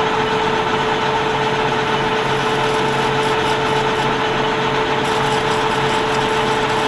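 Metal lathe running steadily, its motor and drive giving a constant whine with a lower hum underneath, while the tool is fed into a brass bar.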